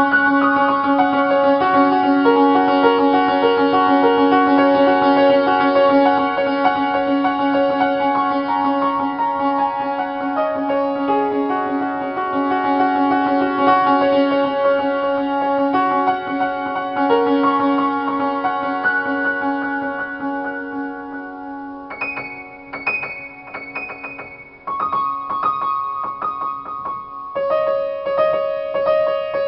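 Upright piano being played in a free improvisation: sustained chords over a held low note, with quickly repeated notes. About three-quarters of the way through it thins to a few quiet high notes, then comes back in fuller.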